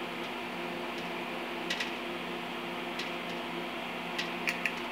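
Steady hum of an electric stick welder left switched on between beads, with a few faint clicks.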